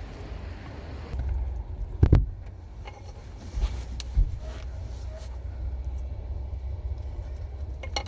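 Low, steady rumble of wind buffeting, broken by a heavy thump about two seconds in and a few lighter knocks.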